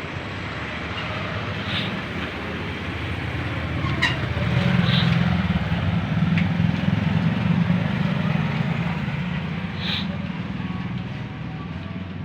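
A low motor rumble that swells from about four seconds in and eases off near the end, with a few sharp clicks and taps.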